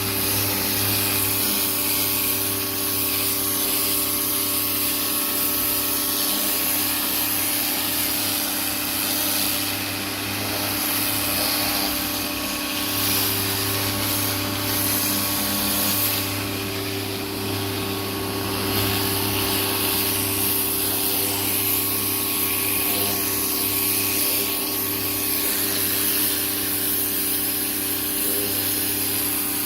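Greenworks 1600 psi electric pressure washer running steadily, its motor and pump humming under the hiss of water spraying from the turbo nozzle. The spray hiss weakens briefly a couple of times.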